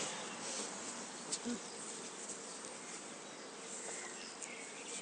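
Faint, steady background hiss with a few soft ticks.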